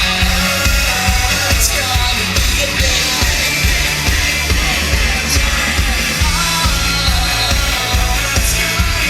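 Live pop-rock band music with a heavy, steady beat and voices singing over it.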